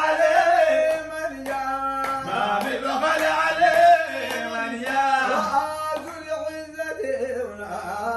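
Group of men singing a Sudanese madih, a praise song for the Prophet, in unison, keeping time with handclaps about once a second.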